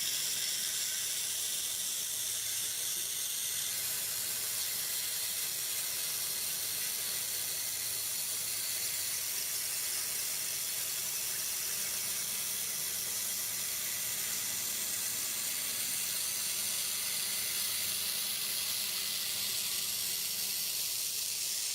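CNC water jet cutter's high-pressure jet cutting granite: a steady hiss with no break. A faint low hum joins it about halfway through.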